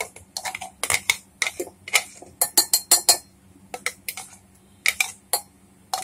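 Kitchen utensils clinking: a mixer-grinder jar being emptied of thick coconut chutney, scraped out and knocked against a steel bowl, giving a run of irregular sharp clinks and taps.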